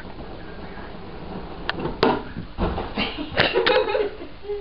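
Handling noise: a few sharp knocks with rustling bursts, heaviest in the second half, as a fabric pop-up toy is carried and swung about.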